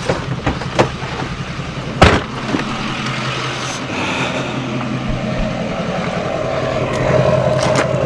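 Vehicle engine idling steadily, with a few sharp knocks and one loud bang about two seconds in.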